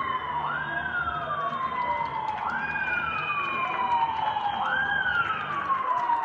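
A siren wailing over and over, each cycle a quick rise in pitch followed by a slow fall, about once every two seconds, with a second higher tone gliding alongside.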